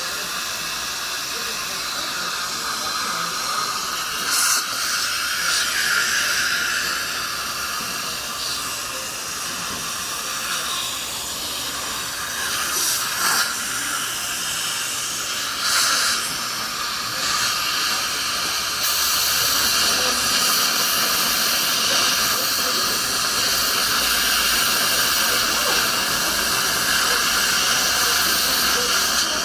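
Steady hiss of dental operatory equipment, air-driven instruments and suction, during work on a tooth, with a few short louder hisses. It grows louder and steadier about two-thirds of the way through.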